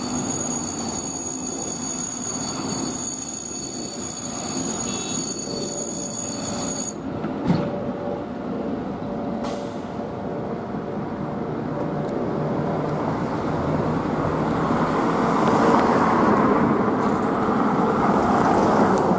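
Fire engine's diesel engine running in city street traffic, a steady rumble of engine and road noise that grows louder toward the end. A thin high whine stops abruptly about seven seconds in, and there is one short knock soon after.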